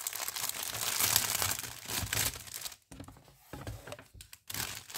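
Clear plastic package crinkling and being torn open by hand. The crackling dies down a little under three seconds in, with only a few light clicks, and picks up again near the end.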